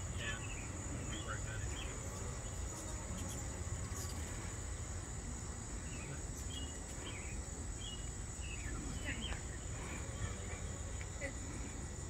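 Steady high-pitched trilling of crickets in an evening insect chorus, with short bird chirps scattered through it, over a low background rumble.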